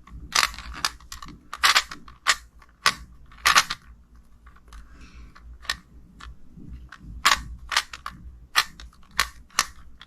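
QiYi clock puzzle being solved at speed: sharp, irregular clicks of its pins being pushed and dials turned, about two a second.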